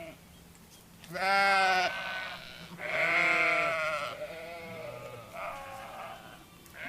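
Sheep bleating: two loud baas, each about a second long, the first about a second in and the second about three seconds in, followed by fainter bleats.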